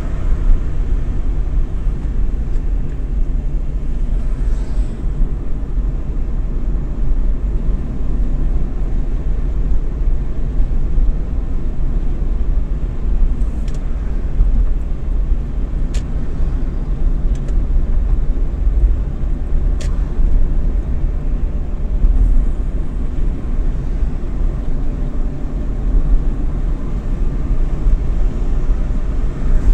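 Road noise heard from inside a moving car's cabin: a steady low rumble of engine and tyres at cruising speed, with a couple of faint ticks midway.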